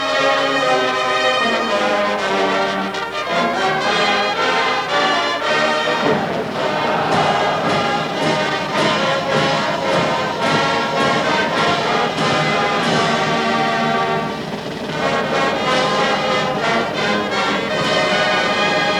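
College marching band playing, its brass section holding full chords, with drums joining about six seconds in.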